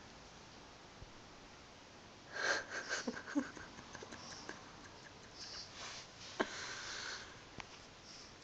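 Pug puppy's noisy snuffling breaths in two short bouts, starting about two seconds in, mixed with the rustle and scrape of a dry branch's twigs on carpet and a couple of sharp clicks.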